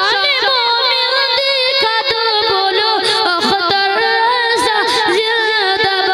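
A boy singing a naat (Islamic devotional poem) solo into a microphone, his high voice holding long notes that waver and glide.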